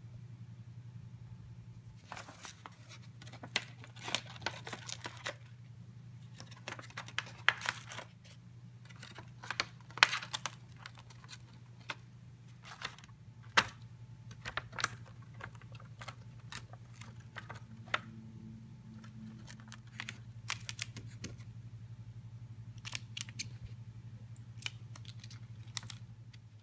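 A lovebird's beak nibbling and tearing at a paper strip: irregular sharp paper snips and crackles, some louder than others, over a steady low hum.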